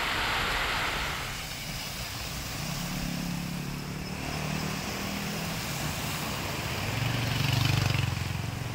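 Heavy rain hissing for about the first second, then a motor scooter's engine running along a flooded road with passing traffic, loudest near the end.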